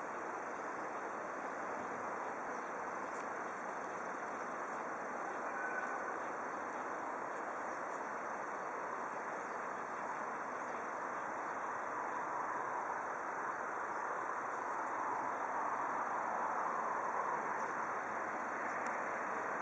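Steady outdoor background noise: an even hiss with no clear tones, swelling slightly in the second half.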